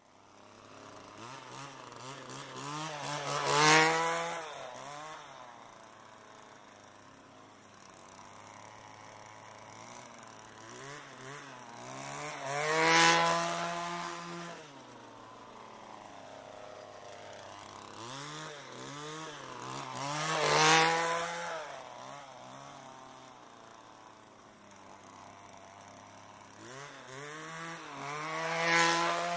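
Gas-powered string trimmer (weed whacker) going past four times, about every eight seconds. Each time it is revved high as it nears, the pitch climbing to a loud peak and then dropping away, and it settles back to a lower, steady running between passes.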